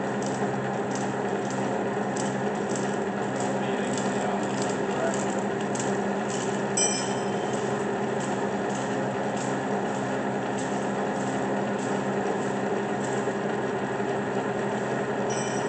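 13-inch South Bend engine lathe running under power: a steady hum of the motor and geared drive, with regular light ticking at about two to three a second. A brief metallic clink about seven seconds in, and another near the end.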